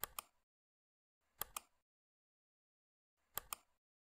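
Computer mouse clicking three times, each click a quick press-and-release pair of sharp clicks: one at the start, one about a second and a half in, and one near the end.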